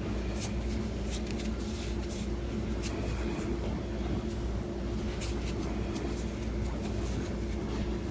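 Hands working a wet flour-and-water bread dough that is starting to stick to the fingers, giving faint scattered clicks, over a steady low hum.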